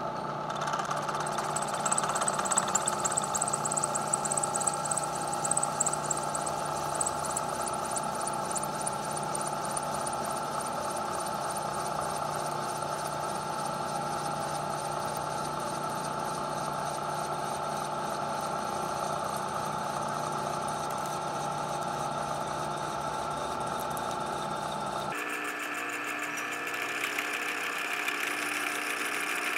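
Lagun vertical milling machine running steadily while its cutter takes a light 20-thousandths facing pass. About 25 seconds in, the low hum stops abruptly and a higher-pitched whine takes over.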